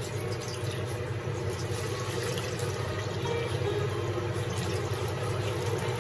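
Water poured from a jug into a stainless steel wok, splashing on the metal, over a steady low mechanical hum.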